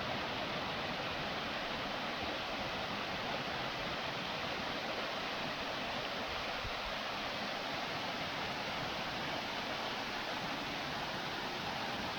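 Waterfall on a small stream: water falling and rushing in a steady, unbroken roar.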